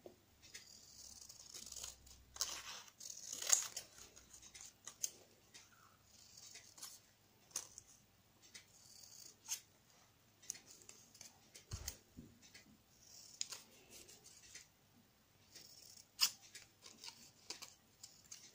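Scissors cutting paper in a series of short snips, with light clicks and paper rustling between cuts.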